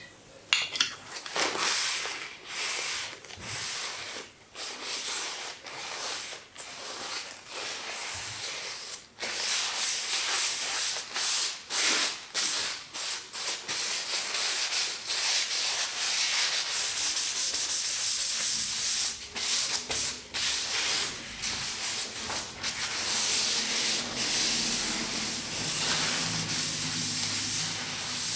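Paper towel rubbing an oil finish into an olive-wood tray: irregular scrubbing and rustling strokes of paper over the oiled wood and the paper sheet beneath.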